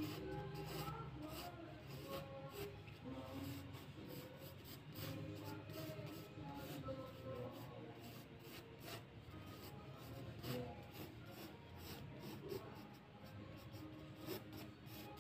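Graphite pencil scratching and rubbing across drawing paper in many short, quick strokes as a portrait is sketched.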